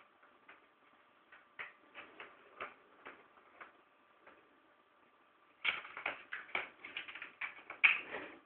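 Plastic circular track cat toy clicking and rattling as cats paw at it. A few scattered clicks give way to a quick run of clatter about six seconds in, loudest near the end.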